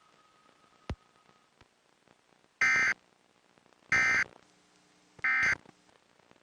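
Emergency Alert System end-of-message data bursts: three short, harsh digital buzzes about a second apart, signalling that the alert broadcast is over. A single click comes about a second in, before them.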